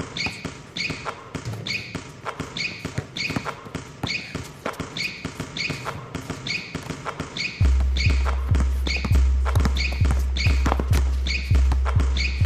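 Background music beat: a sharp tick repeats about twice a second, and a heavy bass comes in suddenly past the middle, making it louder.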